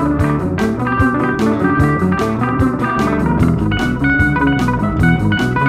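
Background music: a blues-style guitar track with bass and drums keeping a steady beat.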